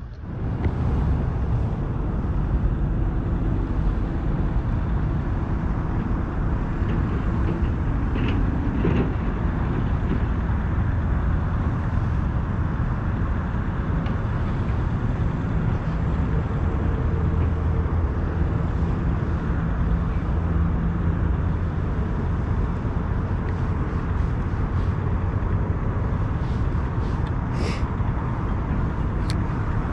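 A steady low rumbling noise that holds at one level throughout, with a faint hum under it.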